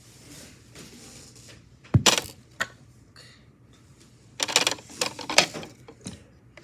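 A few sharp clicks and clatters of small hard objects being handled: one pair about two seconds in, then a quick cluster a little past the middle.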